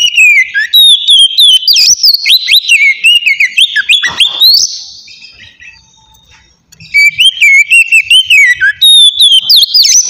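Oriental magpie-robin singing loud, fast whistled phrases of rising and falling notes, in two bouts with a pause of about two seconds between them.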